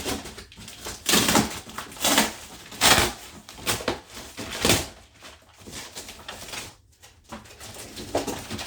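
Packaging being rummaged by hand: a string of short rustling, scraping bursts as the contents of a shipping box are searched.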